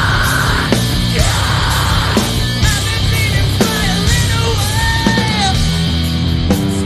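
Post-hardcore rock band playing live, loud and steady: electric guitars and drums with yelled vocals.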